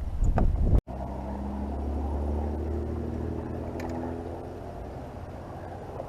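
A boat motor running steadily at low speed, after a brief loud rustle that cuts off abruptly about a second in.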